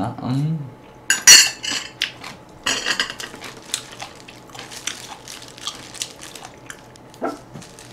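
Metal tongs clinking and scraping against a ceramic plate of braised short ribs. There are a few sharp clatters in the first three seconds, the loudest about a second in, then lighter scattered clicks.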